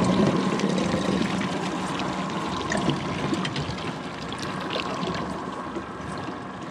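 Water trickling and splashing against a boat's hull, over a steady low hum, slowly getting quieter.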